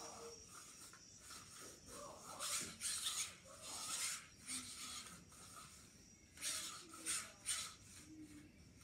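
Several short scraping and rubbing noises, in two clusters a few seconds apart.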